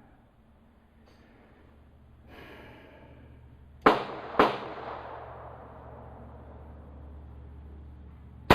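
Three shots from a .22 LR Ruger Charger pistol, each a sharp crack with a short trailing echo. The first two come about half a second apart and the third about four seconds later.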